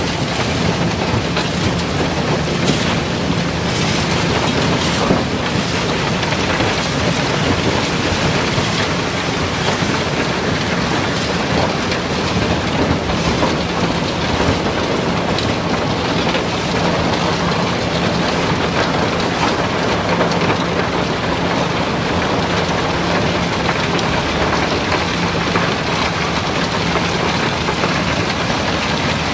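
River rock and gravel sliding and pouring down into a barge's unloading opening: a continuous rushing clatter with frequent sharp knocks of larger stones, fewer in the last third. A steady machine hum runs underneath.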